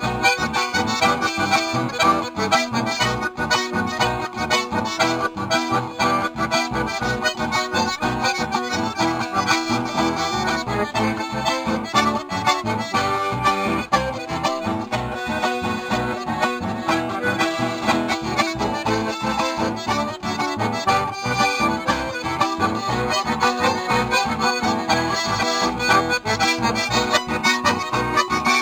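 Live acoustic band of two piano accordions and two acoustic guitars playing traditional music, the accordions carrying the melody over a steady strummed guitar rhythm.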